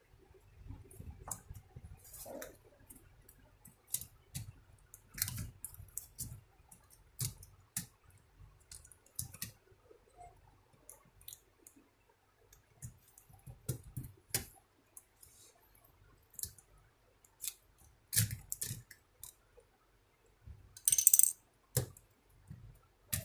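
Plastic laptop parts being handled and fitted back together by hand: scattered, irregular light clicks and knocks, with a louder brief rattle near the end.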